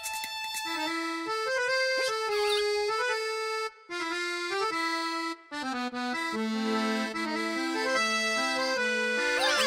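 Cartoon background music: an accordion tune stepping from note to note, with two short breaks in the middle and a few brief gliding squeaks over it.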